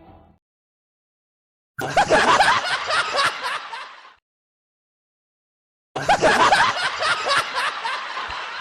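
Audience laughter sound effect: a crowd laughing together in a burst of about two seconds that fades away, then after a pause of silence a second burst of crowd laughter starts about six seconds in.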